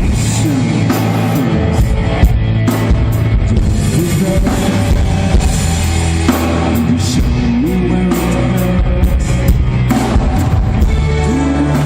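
Rock band playing live and loud: drum kit with regular cymbal strikes under an electric guitar and bass.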